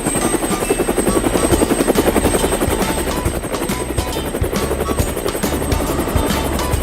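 Helicopter rotor sound effect, a rapid, even chopping that runs steadily, with background music underneath.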